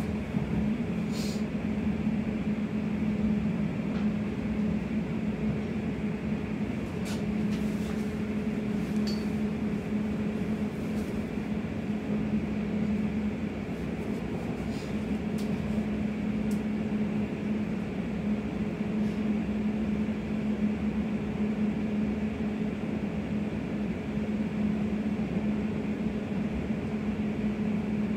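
Steady running hum inside a moving Class 345 electric train carriage, with a constant low tone under the rolling noise. A few faint clicks come through, about a second in, around seven and nine seconds, and near fifteen seconds.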